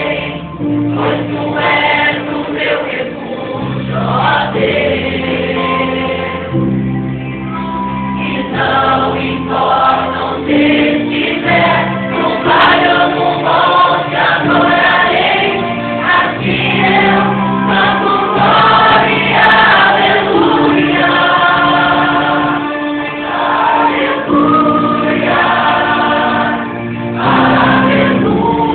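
Choir singing a Christian gospel song over held low accompanying chords.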